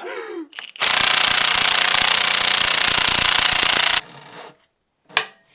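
Impact wrench hammering on a cylinder head bolt of a Honda engine for about three seconds, then stopping suddenly. A single sharp click follows about a second later.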